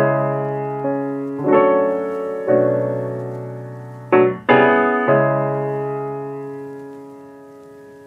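Background music: slow, sustained piano chords struck every second or so, the last one ringing out and slowly dying away over the second half.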